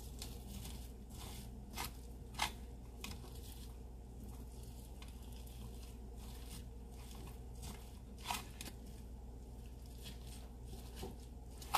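A fork scraping the strands out of a roasted spaghetti squash half: soft, irregular scratching strokes, a few sharper ones about two seconds in, about eight seconds in and at the end, over a steady low hum.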